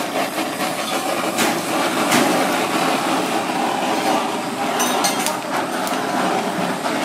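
Handheld kitchen blowtorch running with a steady hiss as it sears abalone in their shells on a foil tray, with a few light clicks over it.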